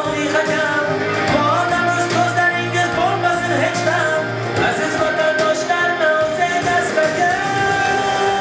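A man sings an Uzbek song live into a microphone, holding long, ornamented notes that slide between pitches, over amplified instrumental accompaniment with a steady beat.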